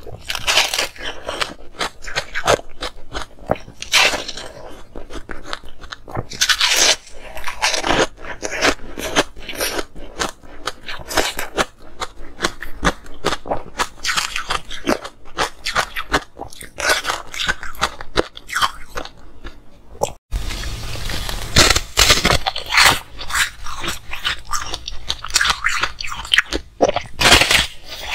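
Close-miked bites and chewing of frosty frozen ice chunks: dense, irregular crunching that keeps going. About 20 seconds in there is a brief gap at an edit, then the crunching of another ice chunk goes on.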